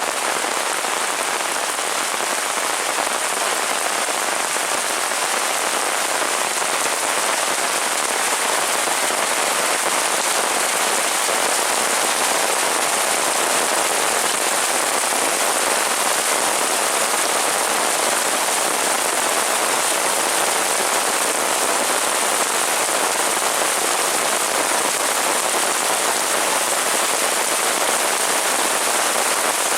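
Heavy rain falling steadily, an even hiss of drops on surfaces that holds at the same level throughout.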